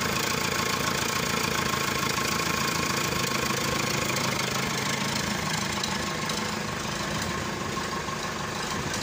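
Nuffield Universal 4 tractor's four-cylinder diesel engine running steadily, a little quieter from about six seconds in.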